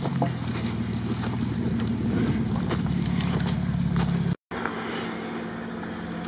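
Jeep Wrangler's engine running steadily at low revs, with light crackles over it. A little past four seconds the sound cuts out briefly and returns as a quieter engine hum.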